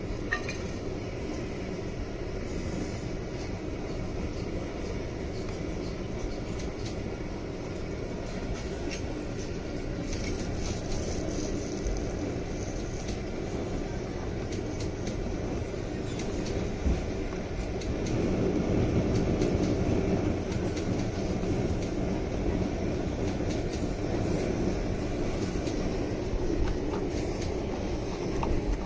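Steady low rumble of vehicle noise, which swells for a few seconds about two-thirds of the way through.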